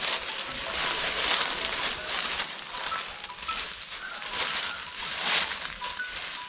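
Footsteps crunching and rustling through dry fallen leaves and twigs, with louder crunches about every second or so.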